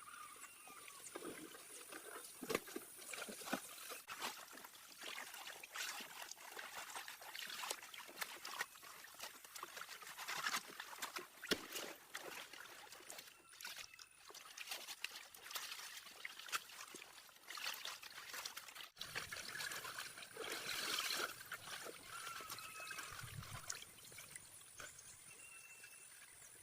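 Water trickling and splashing, with irregular small clicks and knocks throughout.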